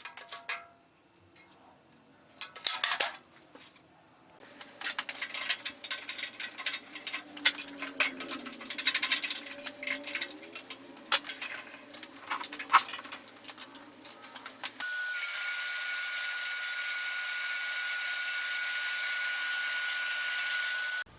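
Wood being sanded on the Shop Fox W1848 drill press's sanding attachment: irregular scraping strokes as the workpiece is pressed against the spinning abrasive, over a low motor hum. In the last six seconds a steady hiss with a high whine takes over and cuts off suddenly.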